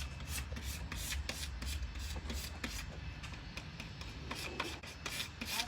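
Plastic card squeegeed back and forth over a vinyl decal to press it onto the truck, quick scraping rubs at about four or five strokes a second.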